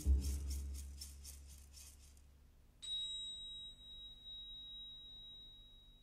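The end of a chamber orchestra piece: a low final note dies away over the first two seconds, then a single very high bell-like note is struck about three seconds in and rings on, slowly fading.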